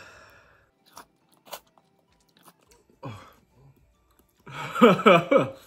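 A man's wordless vocal reactions to the ghost-pepper heat while eating: a brief low sound about halfway through, then a loud run of short, falling-pitched moans near the end. A few faint clicks come earlier.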